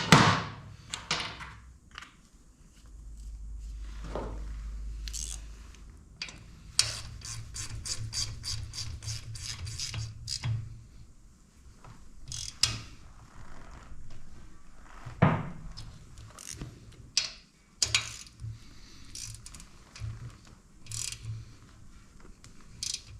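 Hand ratchet tightening bolts: a run of quick, even clicks, with sharp knocks of tools or metal parts at the start and about two-thirds of the way through.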